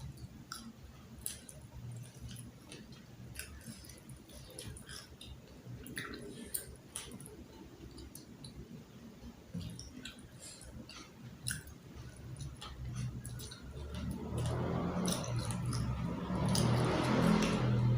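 Close-miked chewing and wet mouth clicks of someone eating carp with raw vegetables. In the last four seconds a louder noisy sound with a low hum swells up and peaks near the end.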